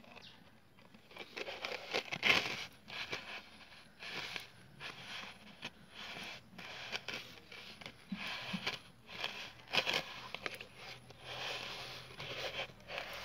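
Small wet container being scrubbed by hand: irregular scraping and rubbing strokes as a child's hand works around the inside, with wet swishes.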